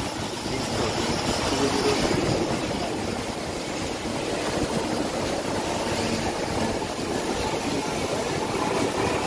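A bus driving along, heard from inside its cabin: a steady mix of engine and road noise with no break.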